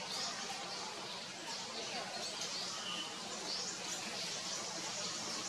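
Steady outdoor ambience: a constant hiss of background noise with faint, scattered bird chirps.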